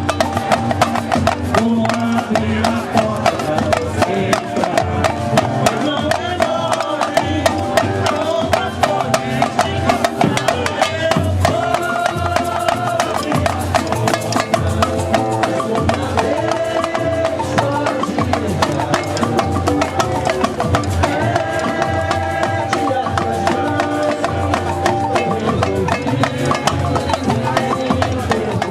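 Samba played by a carnival street bloco: dense, driving percussion with a tune carried over it, fading out at the very end.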